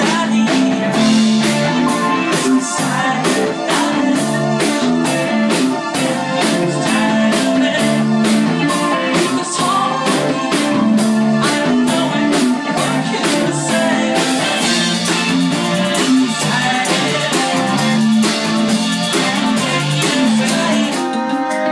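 Live indie rock band playing: electric guitar, bass guitar and keyboards over a steady beat, continuous and loud.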